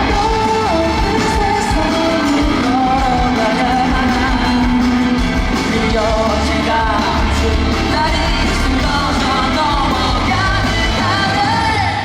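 Live pop-rock band performance with a male lead singer carrying the melody over full band accompaniment, loud and steady throughout.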